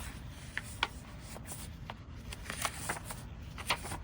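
Paper pages and tucked-in old papers of a handmade junk journal being handled, rustling with scattered short crackles, the sharpest about a second in and near the end.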